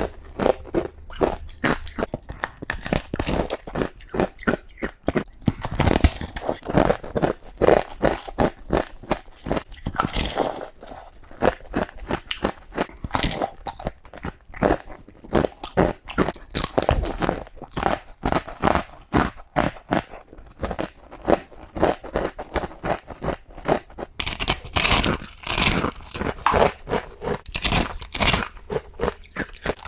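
Ice being bitten and chewed close to the microphone: a rapid, continuous run of crisp crunches, several a second.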